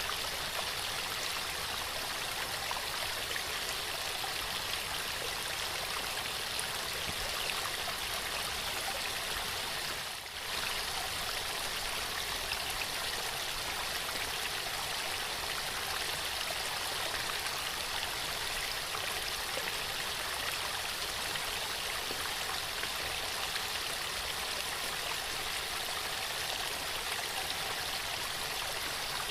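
Waterfall: water falling and rushing steadily, with a brief dip in level about ten seconds in.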